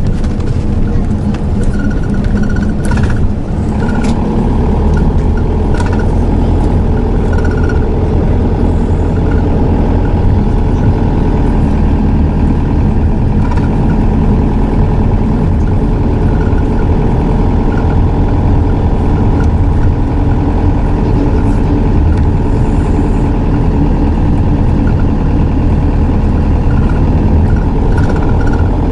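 Hino Liesse II minibus (SDG-XZB50M, 5-speed automatic) diesel engine running steadily, with a few light clicks and rattles in the first several seconds.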